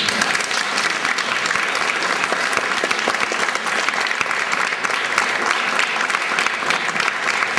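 Audience applauding: dense, even clapping from many hands.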